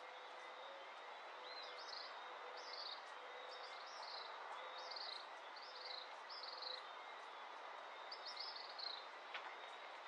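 Dawn ambience: a bird repeating short, falling high chirps every half second to a second, over a steady hiss and a faint, steady high insect drone.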